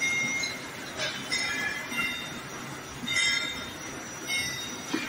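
Short, high metallic squeaks, several tones at once, coming in irregular bursts about once a second: a caliper's steel jaws scraping across a turned metal part as it is measured.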